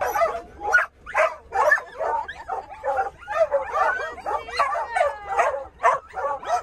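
Dogs barking, yipping and whining in quick succession, short high calls coming several times a second without a break and overlapping one another.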